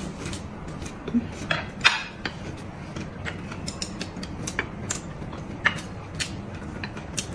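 Chopsticks clicking and tapping against ceramic plates in scattered light taps, mixed with eating noises.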